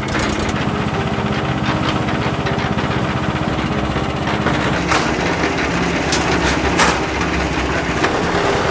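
Small gasoline engine of a portable drum concrete mixer running steadily at a fast, even beat, turning the drum. A few sharp knocks sound over it about five and seven seconds in.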